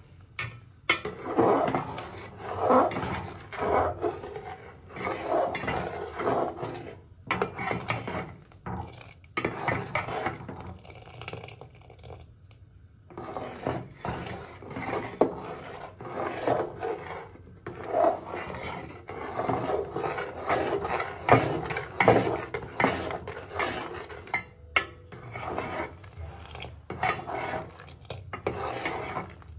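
Metal ladle scraping and rubbing around the inside of an aluminium pot while stirring makhana kheer, in repeated irregular strokes with a short break near the middle.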